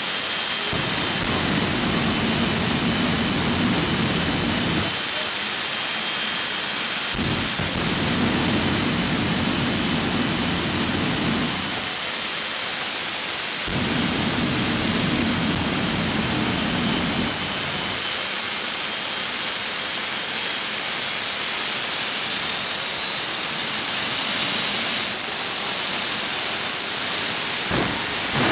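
Jet dragsters' turbine engines running at the starting line with a steady high whine. A deeper rumble comes in three times for a few seconds each as the afterburner is lit, and near the end the whine rises in pitch.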